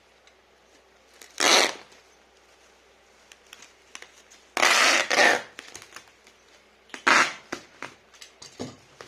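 Packing material being handled: four short rasping bursts, the longest a double one in the middle and the last one weaker.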